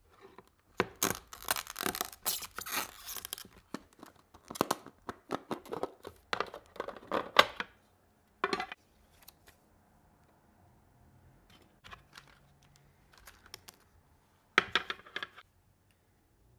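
Clear plastic model-train case and its packaging being opened and handled: dense bursts of crinkling and scraping plastic for about the first eight seconds, a quiet stretch, then one more short burst near the end.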